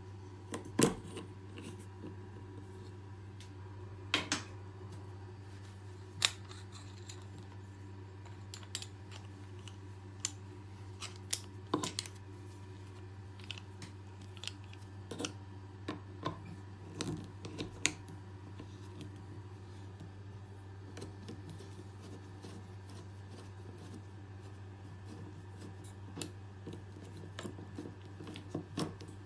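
Scattered sharp clicks and taps, irregular and loudest about a second in and around six seconds, over a steady low hum.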